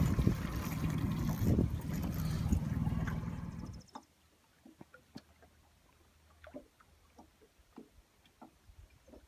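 Low rumble and rushing water noise from a fishing boat on the lake, which cuts off suddenly about four seconds in. It leaves near silence with a few faint soft ticks.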